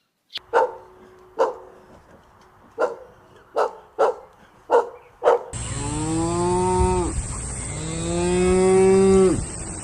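A dog barks about eight times in short, sharp barks. Then two long, steady moos come from a bovine, each dropping in pitch at its end.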